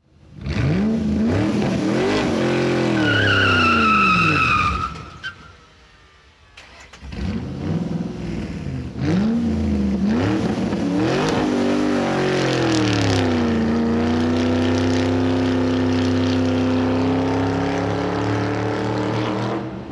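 Car engine speeding, its pitch climbing and dropping again and again as it revs through the gears. A high tyre squeal sounds for about two seconds early on. After a short lull near the middle, the car accelerates again and holds a steady high-revving drone through the second half.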